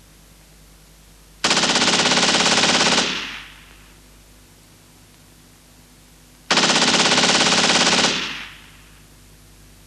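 Two bursts of machine-gun fire, each about a second and a half long, starting abruptly and fading out, over a steady hiss.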